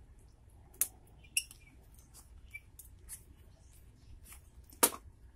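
A few sharp clicks and taps of metal locking pliers and a resin bullet mold being handled in gloved hands, sparse and quiet, with the loudest click near the end.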